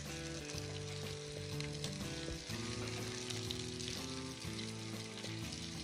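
Food sizzling as it fries in hot oil in a clay handi pot, with a ladle stirring it, under background music of held notes.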